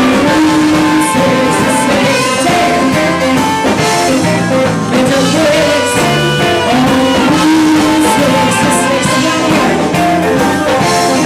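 Live rock band playing: a woman sings lead over electric bass, guitar and a drum kit with crashing cymbals.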